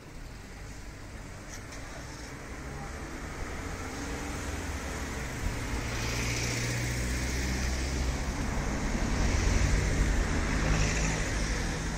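Road traffic: a motor vehicle's engine hum and tyre noise growing louder as it approaches and passes close, loudest near the end.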